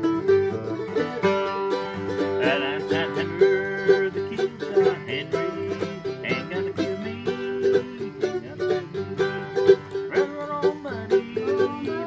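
Background music led by quickly picked string instruments in a country style.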